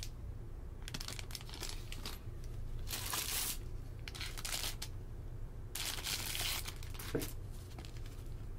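Plastic packaging crinkling and being pulled open by hand in several bursts, the loudest about three seconds in, with a soft knock about seven seconds in. A steady low hum runs underneath.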